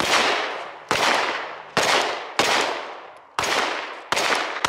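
Aeonic Arms Alpha Comp steel-frame pistol fired in an unhurried string: seven shots at an uneven pace, about half a second to a second apart. Each report trails off in an echo that has almost died before the next shot.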